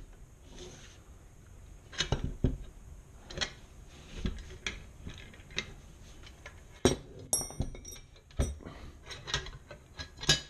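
Irregular metallic clinks, taps and knocks of steel bolts and a metal mounting plate being handled and fastened onto a motorcycle side-case rack, with a few louder knocks and a brief ringing clink about seven seconds in.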